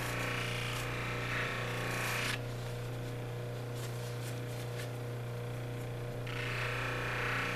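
Lapidary polishing machine's compressed felt wheel, charged with cerium oxide, spinning with a steady motor hum. A labradorite cabochon held against the wheel makes a hissing rub for the first two seconds or so; the rub stops while the stone is lifted off and starts again near the end.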